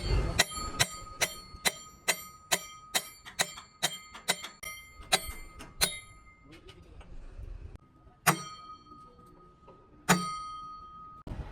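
Metal being struck with a hammer, about two ringing blows a second for several seconds. After a pause come two louder single blows, each leaving a lingering metallic ring.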